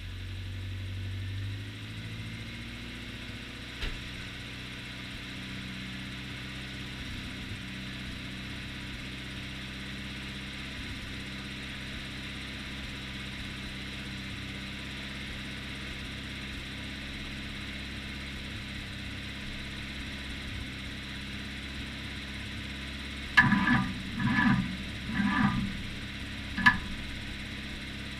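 John Deere JD400 backhoe engine idling steadily just after starting, running a little faster for the first couple of seconds before settling. Near the end come four short, loud, pitched blasts.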